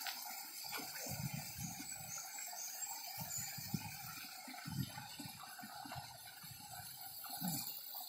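Faint water sound from a spring-fed pool, with soft, irregular low thumps of footsteps on a dirt path.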